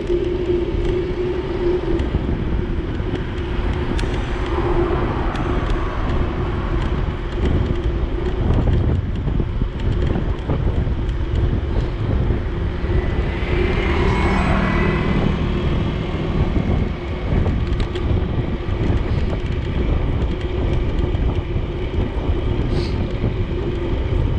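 Wind rushing over the microphone and road noise while riding a bicycle along a road in traffic, with a motor vehicle passing about halfway through.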